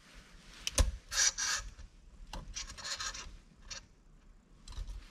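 Metal C-clip scraping and clicking against the shifter housing as it is forced into place: a sharp click about a second in, then two rasping scrapes and a few small clicks. The clip is awkward to get into its groove.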